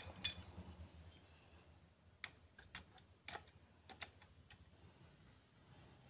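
A few short, sharp clicks, the first the loudest: cutters snipping at the legs of a 5 W 0.47 ohm cement resistor on an amplifier circuit board.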